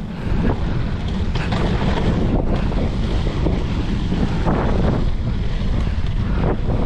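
Strong wind buffeting the microphone of a mountain bike's action camera, a steady low rumble. A few short clatters come through it as the tyres roll over the wooden boardwalk planks.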